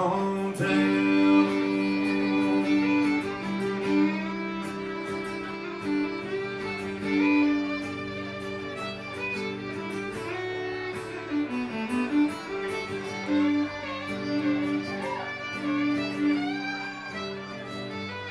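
Live fiddle carrying the melody with long bowed notes and a slide down and back up partway through, over a strummed acoustic guitar, with no vocals: the instrumental outro of a country song.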